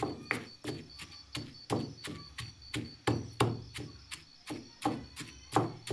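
Pestle pounding a moist raw papaya and spice mixture in a stone mortar: a steady run of dull thuds, a little over two a second.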